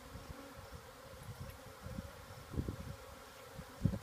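Honey bee swarm buzzing, a steady hum of many bees flying around an open hive box. A few dull low thumps sound under it, the loudest near the end.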